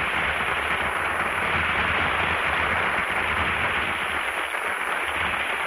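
Studio audience applauding steadily on an old radio broadcast recording, thinning a little near the end.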